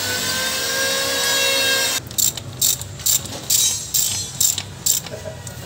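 Steady held tones of music for about the first two seconds, cut off abruptly. Then a hand ratchet wrench clicks in short strokes, about two a second, turning a bolt on a dump truck's transmission.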